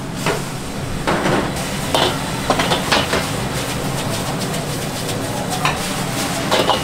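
Stir-frying in a wok over a strong flame: a steady sizzling rush with sharp clanks and scrapes of a metal spatula, clustered about one to three seconds in and again near the end.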